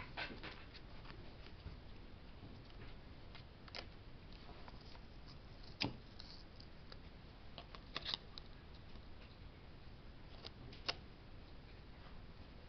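Faint scattered clicks and light rustling of hard plastic mount parts being handled and turned over on a table, a sharp click every few seconds.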